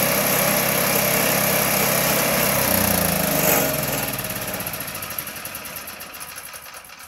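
Yamaha YT660E snowblower's engine running steadily, then switched off about three seconds in, its pitch sinking as it winds down and dies away.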